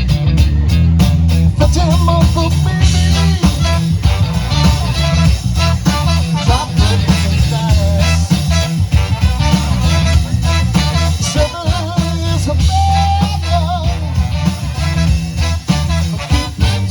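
A live horn band playing a funk-rock number: horns carry the melody over a steady drum beat and bass.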